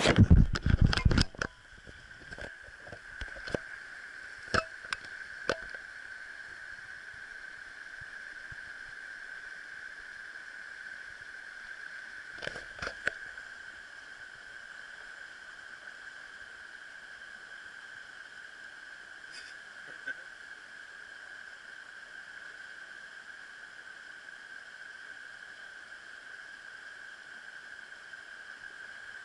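Camera knocked and handled for about a second and a half as it is set down. Then a shallow stream runs steadily over stones, with a few light knocks and clicks.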